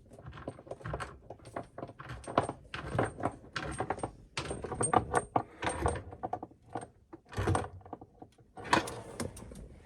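Irregular metallic clicks, clinks and knocks as the mounting nut of a kitchen mixer tap is tightened up from under the sink bench.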